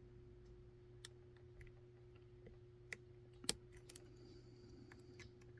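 Faint, sparse ticks and clicks of a lock pick working the standard pin stack of a Medeco Keymark lock, with one sharper click about three and a half seconds in. A low steady hum runs underneath.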